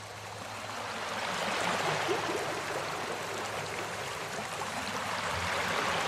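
Steady rush of running water, fading in over the first couple of seconds and then holding steady.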